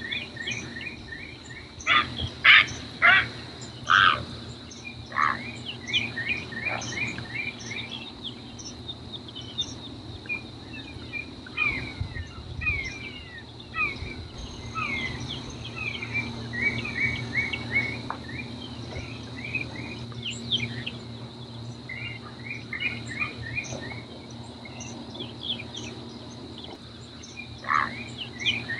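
Marsh chorus of frogs, insects and birds: a steady high insect drone under repeated quick runs of short rising chirps, with a few loud calls about two to four seconds in.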